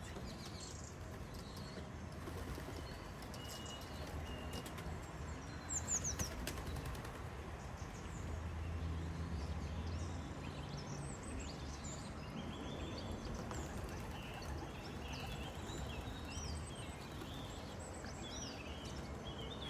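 Racing pigeons moving about at the loft with flaps of their wings, over a steady low rumble. Small birds chirp briefly now and then.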